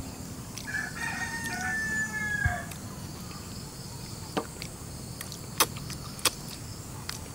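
A rooster crowing once, one drawn-out call of about two seconds starting a little way in. Later come a few short, sharp clicks.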